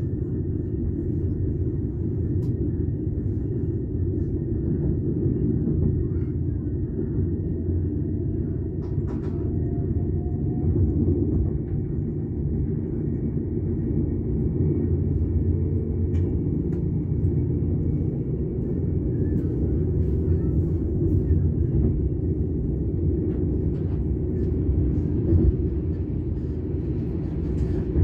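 Steady low rumble of a passenger train running along the track, heard from aboard, with a few faint clicks.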